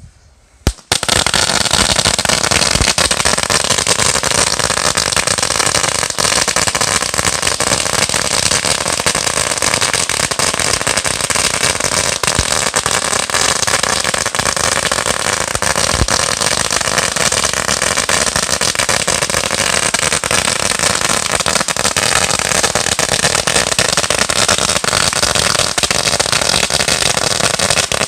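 A 16,000-count firecracker strip going off in one continuous rapid-fire crackle of packed bangs. It starts suddenly about a second in and keeps going at an even pace.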